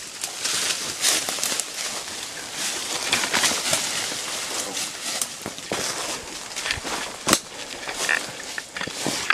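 Dry leaves crunching, brush rustling and twigs snapping underfoot as people and a dog push through dense undergrowth, a run of irregular crackles with one sharp snap about seven seconds in.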